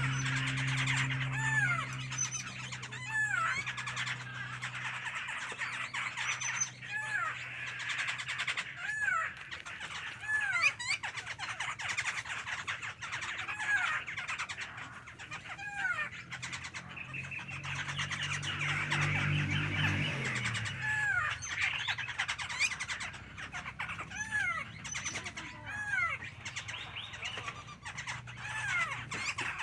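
A songbird calling: short arched notes repeated about every one to two seconds, over a low hum that is strongest at the start and again about two-thirds of the way in.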